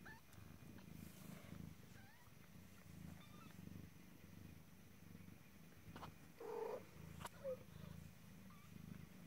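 Mother cat purring, a steady low pulsing, with faint high rising squeaks from week-old kittens now and then. A brief louder sound comes just past halfway.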